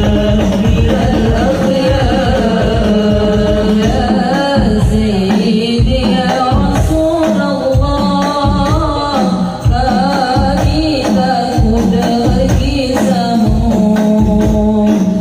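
Hadroh ensemble performing sholawat: Arabic devotional singing over frame drums (rebana) struck in a steady rhythm.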